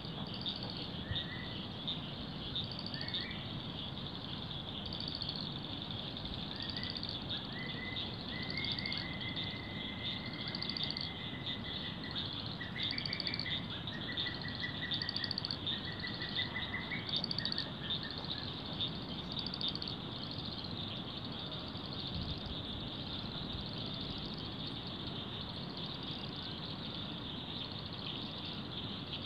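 A steady, high-pitched chirring chorus of small calling animals from the flooded wetland, with a short chirp repeating about once a second. Through the middle, a bird joins with a run of trilled calls.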